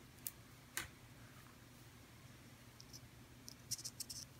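Faint small clicks and scratches of a jumper wire being handled and pushed into a solderless breadboard: two single clicks in the first second, then a quick cluster of clicks near the end as the wire goes into the board.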